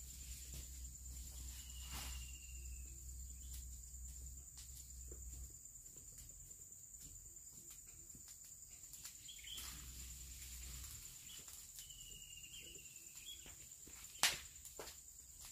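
A steady high-pitched insect trill runs through, with scattered faint clicks and one sharp knock near the end.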